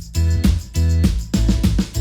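Instrumental music for a children's song with a steady beat: bass, drums and strummed chords.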